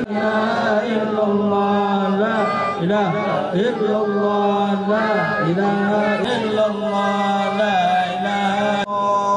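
Many male voices chanting Arabic prayers together in a slow, melodic unison recitation over a steady held tone.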